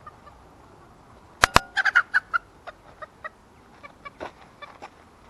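Two sharp knocks, the loudest thing here, then a Polish chicken squawking in a quick run of short calls as it is caught by hand, followed by a few scattered clucks.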